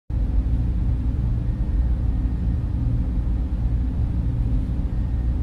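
A steady, deep, muffled rumble with only the lowest bass present and nothing bright on top.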